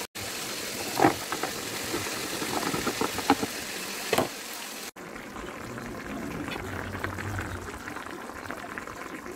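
Ground meat and diced potatoes sizzling in a nonstick pan, with a few sharp knocks against the pan in the first half. After a cut about five seconds in, a tomato sauce with boiled eggs simmers more quietly.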